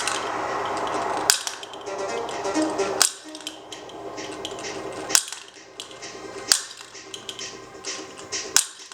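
Sharp plastic clicks and snaps from a mini table finger basketball toy being played, a loud one every second or two with lighter clicks between, over background music.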